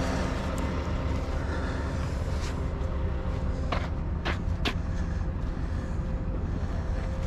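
Heavy wrecker's diesel engine running steadily at idle, with a few sharp clicks about four seconds in.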